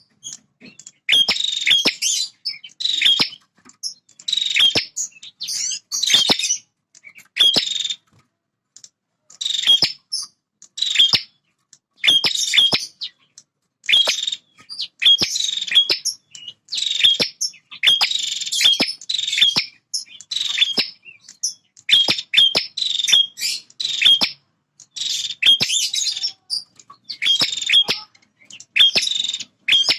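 Male prinia (prenjak) singing loudly and without let-up: short bursts of sharp, high chirps, one about every second, with brief pauses between them. This is a territorial song.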